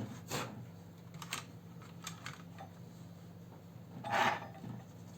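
Plastic top cover of an Asus Eee PC 1015BX netbook being fitted back onto the case: a few light clicks, then a louder plastic scrape about four seconds in.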